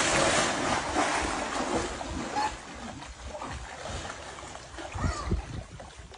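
Swimming-pool water splashing and churning just after a person has plunged in, dying down over the first few seconds. A couple of short, low splashes come about five seconds in.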